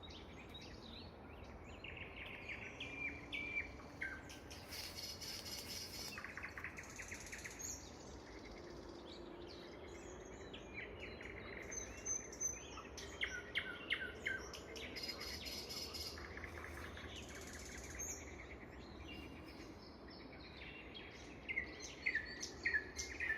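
Nightingale singing: varied phrases of rapidly repeated notes, fast rattling trills and clear whistles, with short pauses between phrases.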